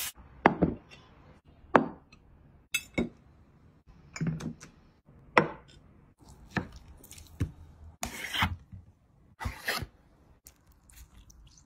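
Food and utensils being handled and cut on plates and boards: an uneven run of sharp knocks and chops, about one a second, with a few longer scraping sounds near the end.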